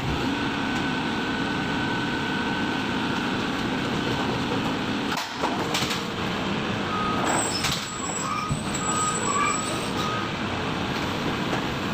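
Excavator's diesel engine and hydraulics running steadily while unloading material from a container, with a few knocks and clanks in the middle and short high-pitched squeals or beeps in the second half.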